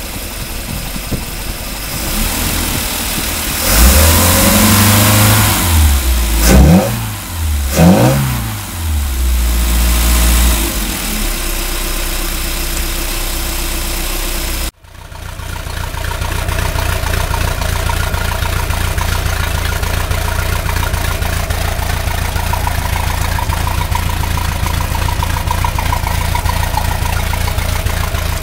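MerCruiser 170 hp four-cylinder sterndrive boat engine idling, then revved several times with the pitch rising and falling, two quick blips standing out, before it settles back to idle. After a sudden cut it is heard idling steadily at the outdrive, which runs on a garden-hose water supply.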